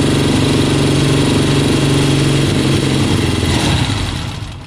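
1973 Triumph Bonneville T120's 650 cc parallel-twin engine idling on newly fitted Wassel carburettors. About two and a half seconds in the steady beat turns uneven, and near the end the engine fades out and stops: not yet running right on the carbs straight out of the box.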